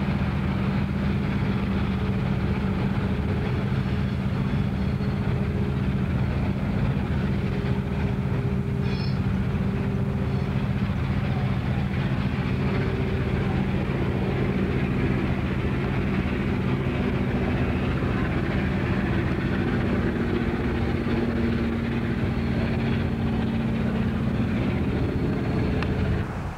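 Diesel locomotives hauling a train, their engines a steady low drone with a constant hum over the rumble of the train.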